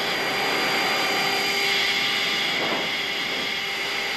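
Steady jet aircraft noise heard inside the cockpit in flight: an even rushing hiss with several constant whining tones running through it.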